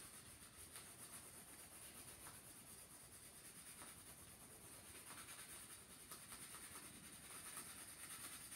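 Faint, steady scratching of a wax crayon rubbed over a paper plate as an area is coloured in.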